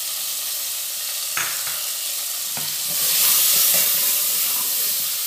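Chopped onions sizzling as they fry in hot ghee in a pressure cooker, stirred with a steel ladle that knocks against the pot a couple of times. The sizzle grows louder about three seconds in.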